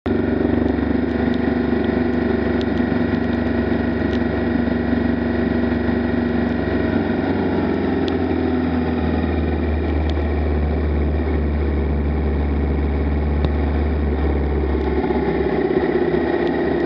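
Motorcycle engine running steadily on the road, with wind rushing over the bike-mounted microphone. The low engine note shifts a couple of times, and a few light ticks come through.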